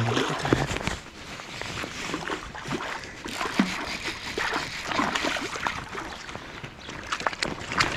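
Hooked rainbow trout splashing at the surface of a shallow stream as it is played in, irregular splashes over the steady noise of running water, loudest about the first second.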